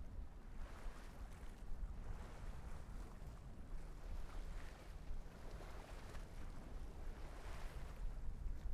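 Wind buffeting a fur-windscreened microphone with a constant low rumble, over sea water washing and lapping against a harbour breakwater in irregular swells.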